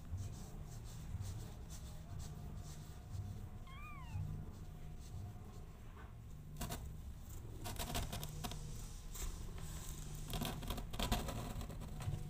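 A newborn kitten gives one short, thin mew that rises and falls, about four seconds in, over a low, steady cat purr. Bursts of soft rustling and clicking follow in the second half.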